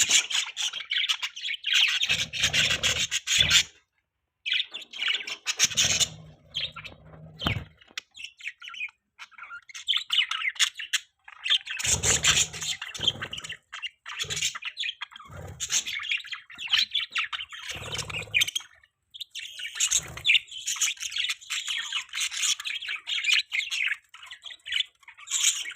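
Budgies chirping and warbling in busy bursts of a few seconds with short pauses between, with dull low thumps now and then beneath the chirps.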